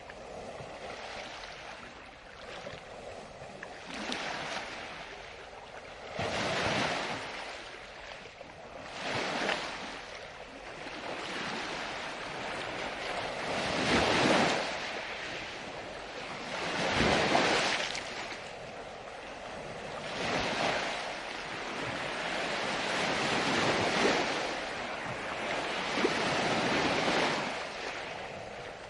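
Ocean waves breaking and washing on a shore, one swell of surf after another every few seconds, the loudest two about halfway through.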